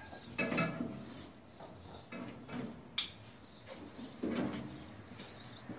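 Scattered knocks and scrapes of hand tools working on a car's metal parts, with one sharp click about three seconds in.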